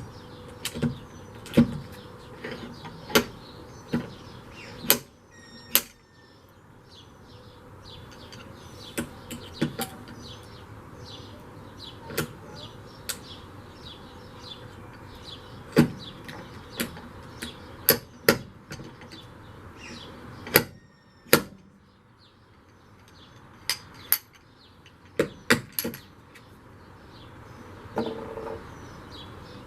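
Irregular sharp knocks and taps on sheet metal, a couple of dozen spread unevenly, the loudest clustered around the middle and near the end: hand work pulling and tapping dents out of a Jeep's steel windshield frame.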